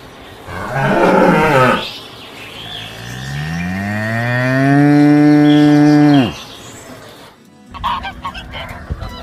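Cows mooing: a short moo, then one long moo that rises in pitch, is held and stops suddenly. Near the end, domestic geese honk in short, choppy calls.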